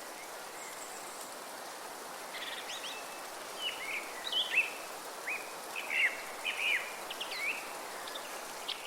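Steady wind through forest trees, with birds singing a run of short chirps and quick whistled glides that start about two seconds in and come thickest in the middle.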